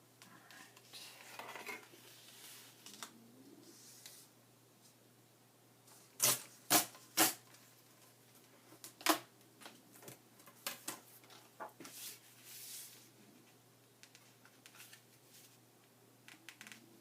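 Paper and craft pieces being handled on a table: soft rustling and sliding, with three sharp taps about half a second apart around the middle and another a couple of seconds later, then lighter ticks.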